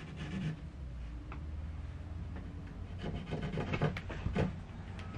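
A plywood board being handled, its wood rubbing and knocking against the surfaces it rests on, with a cluster of scrapes and short knocks about three seconds in.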